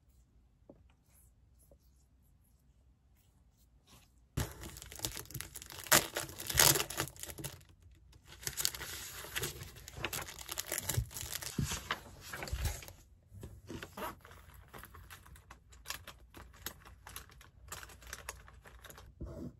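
Near silence for about four seconds, then crinkling and rustling of a plastic sheet and papers being handled on a desk, densest for several seconds, thinning to scattered lighter clicks and rustles.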